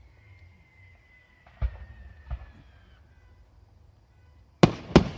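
Fireworks going off: two deep booms of shell bursts about a second and a half and two seconds in, then two loud, sharp cracks half a second apart near the end.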